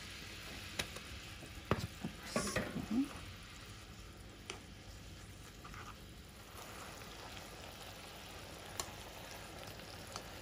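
Thinly sliced wagyu beef sizzling in a bubbling soy-and-mirin sauce in a nonstick frying pan while being stirred with wooden chopsticks, which click against the pan now and then. A cluster of louder knocks comes about two seconds in.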